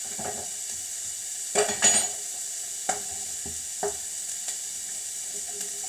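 Potatoes and mushrooms frying in a pan over high heat, a steady sizzle, with a few clinks and knocks of a spoon against a cup or pan, the loudest about a second and a half in.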